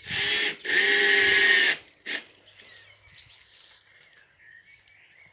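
Electric screwdriver driving a screw into wood: two runs of its motor whine, a short one then a longer one of about a second, and a brief blip just after. Birds chirp faintly for the rest.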